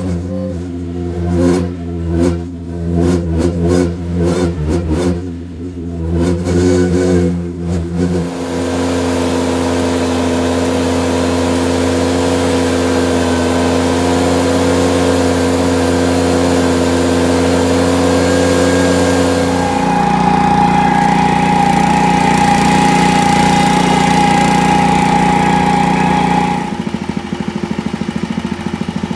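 Ventrac compact tractor engine running while power raking dirt, uneven with brief dropouts for the first several seconds, then steady. About two-thirds of the way through its sound changes and a high steady whine joins it; this drops away again near the end.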